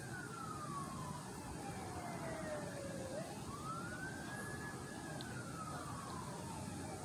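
Faint emergency-vehicle siren in slow wail mode: a single tone that rises, holds near its top, then slides slowly down, beginning to rise again about three seconds in. It sounds over a steady low background noise.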